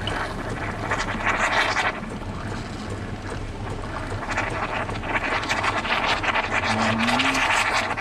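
Saeco espresso machine's steam wand hissing into a cup of coffee, frothing it into bubbles, over a steady low hum. The hiss swells about a second in and again over the last few seconds.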